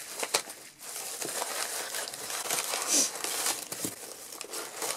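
Crumpled newspaper packing and plastic wrapping rustling and crinkling as hands rummage through a cardboard box, with a louder crackle about three seconds in.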